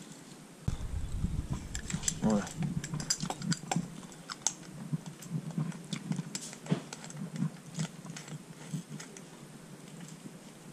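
Light clicks and small metallic knocks of a pitbike carburettor being handled and assembled by hand, its slide and spring being fitted into the body.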